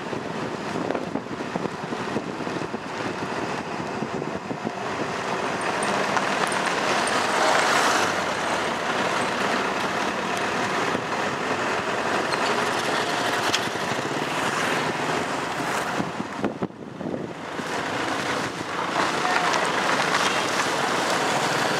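Road and wind noise from riding in a moving vehicle, a steady rushing with a brief lull about three-quarters of the way through.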